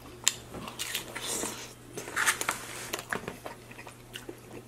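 Close-miked biting and chewing of a sope, a thick corn-masa cake with toppings, heard as a sharp click near the start and then a few short bursts of mouth sounds.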